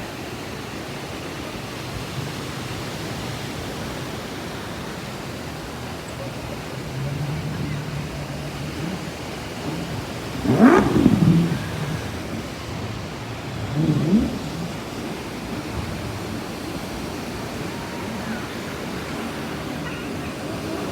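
Steady wash of beach surf. About halfway through, and again a few seconds later, there are two brief, louder sounds that slide in pitch.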